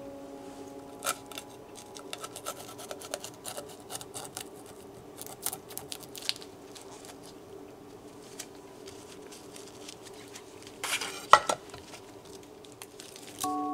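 A knife working small whole sea bream on a wooden cutting board: scattered light clicks, taps and scrapes of the blade and fish against the board, with a louder clatter about eleven seconds in as the chef's knife is set down on the board.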